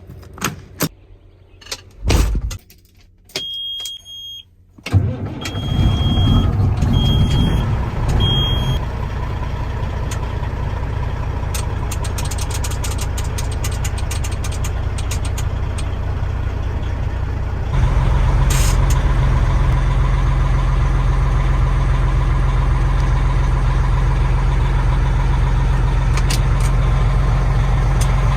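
Peterbilt 378 truck's diesel engine cranking and catching about five seconds in, then idling steadily; the idle steps up to a louder, heavier drone about two-thirds of the way through. Before and just after the start, clicks and a series of short high beeps from the cab's warning beeper.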